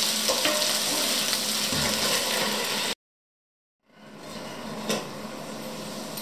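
Diced potatoes sizzling steadily in oil in a frying pan, with a few small knocks. About three seconds in the sound cuts off for about a second, then the sizzle comes back quieter with the pan covered by a lid, with one sharp knock near the end.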